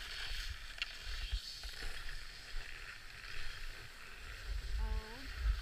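Skis sliding and edging over groomed snow, a steady scraping hiss, with wind rumbling on the microphone.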